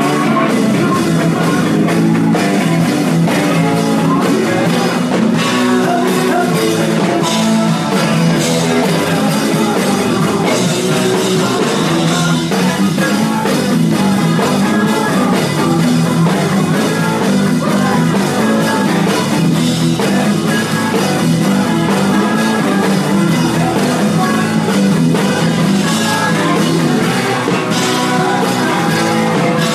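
Live rock band playing a song, with singing, at a steady full level.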